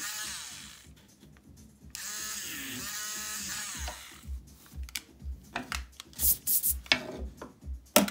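Electric eraser whirring in two spells of about two seconds each, its pitch dropping each time. Later come a few light clicks and taps, one sharper near the end, over background music with a steady low beat.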